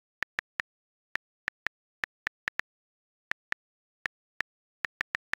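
Key-press clicks from a Gboard on-screen keyboard as someone types: about fifteen short, sharp ticks in uneven runs, with silence between them.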